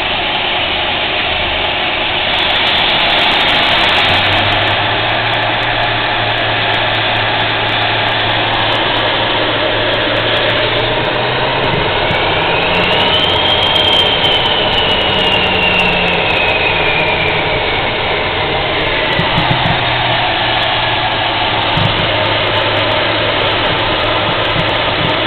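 Cessna Citation Mustang's twin turbofan engines running at low power, heard from inside the cockpit as the jet taxis. A steady whine and rush with a low hum; about halfway through, a whine rises quickly and then slowly falls away over several seconds.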